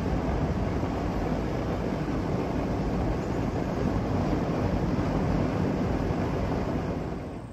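Wind blowing across the microphone: a steady, noisy rumble that fades out near the end.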